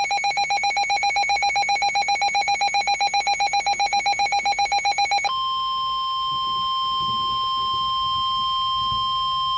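A weather radio's alert tone pulsing rapidly for about five seconds, then switching abruptly to the steady 1050 Hz NOAA Weather Radio warning alarm tone, the signal that a warning such as a severe thunderstorm warning is about to be broadcast.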